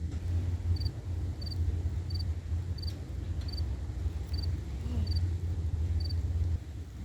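A cricket chirping steadily, about three short high chirps every two seconds. Beneath it runs a continuous low rumble that drops away near the end.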